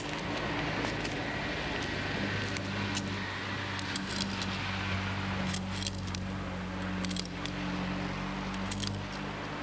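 City street traffic, with a vehicle engine running nearby as a steady low hum. Several short clicks and rattles come in small clusters through the middle and latter part.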